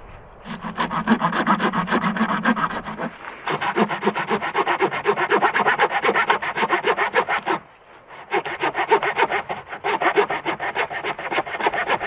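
Small hand saw cutting through a weathered log with quick back-and-forth strokes, about five a second. The sawing stops briefly about two-thirds of the way through, then starts again.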